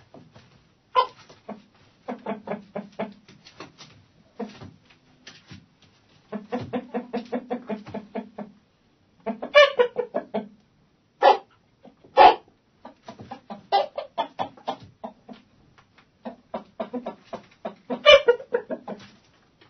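Domestic hens clucking in a coop: runs of quick, short clucks from several birds, broken by a few louder, longer calls about one, ten, eleven, twelve and eighteen seconds in.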